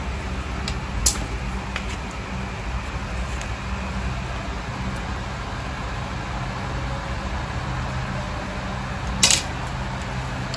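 Steady low background hum, like a room fan running, with two brief sharp ticks: one about a second in and a louder one near the end.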